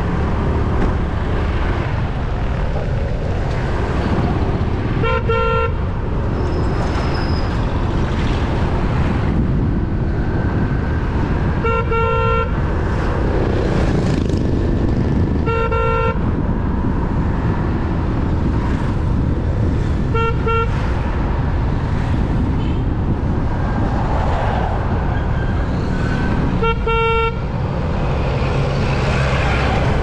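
Motorbike riding over a rough road, its engine, tyres and wind on the bike-mounted camera making a steady low rumble. Five short horn beeps, all at the same pitch, cut through it at intervals of roughly four to seven seconds.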